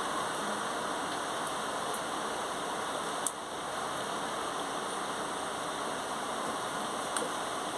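Heavy rain falling steadily over a city, an even hiss, with two sharp ticks about three and seven seconds in.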